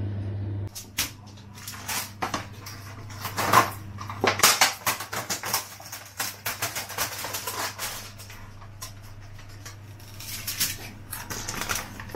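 Irregular clicks, clatters and crinkles of kitchen handling around a foil-lined baking tray. A low hum fades out in the first few seconds.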